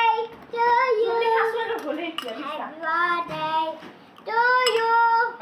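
A child's voice singing or chanting wordlessly in drawn-out notes, with a couple of sharp clinks of a metal spoon against a ceramic bowl.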